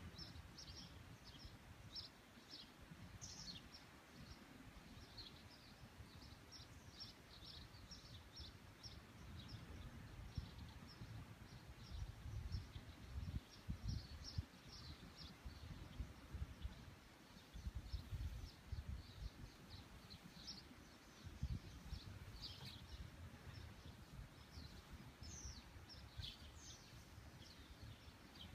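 Small birds chirping, many short high calls again and again throughout, over a low, gusty rumble that swells a few times.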